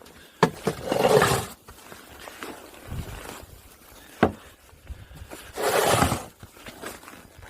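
Wind gusting in a snowstorm: two rushing gusts about a second long, one near the start and one about six seconds in, with a few sharp knocks between them.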